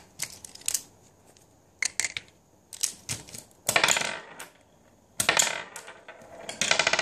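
Hard plastic B-Dama marbles clicking and clattering against the Cross Fight B-Daman Break Ball target and stadium. A few scattered single clicks come first, then three longer rattling runs: about halfway, a second later, and near the end.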